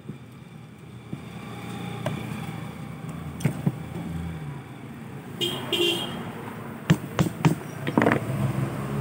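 Sharp metallic clicks and taps of a screwdriver working on a removed ignition distributor, several close together near the end. Behind them a motor vehicle's engine hums steadily, and a short horn toot sounds about halfway through.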